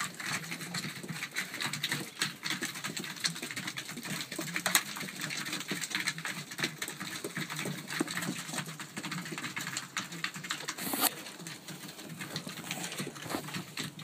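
Racing pigeons pecking grain from a wooden feeding trough: a dense, irregular patter of beak taps on seed and wood. A brief, louder rush of noise comes about eleven seconds in.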